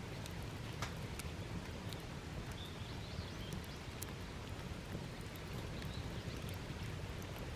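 Wood campfire crackling: scattered sharp pops and snaps from the burning firewood over a steady low rumble.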